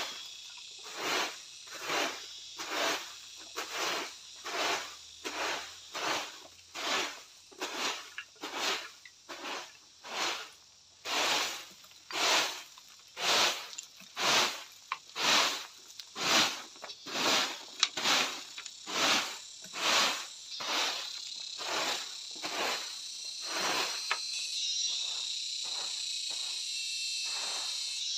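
Rhythmic rasping strokes, a little more than one a second, each short and even, growing fainter near the end. A steady high hum of insects runs underneath and comes forward as the strokes fade.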